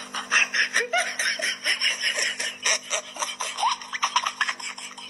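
Laughter: a rapid run of short ha-ha bursts that keeps going.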